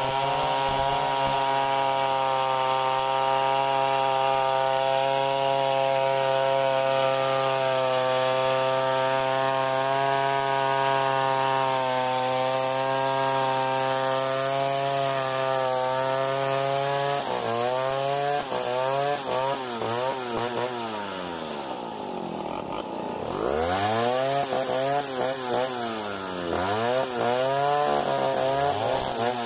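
Stihl 070 two-stroke chainsaw ripping lengthwise through a hardwood log in a freehand milling cut. It holds a steady engine speed under load for the first half, then its pitch rises and falls over and over.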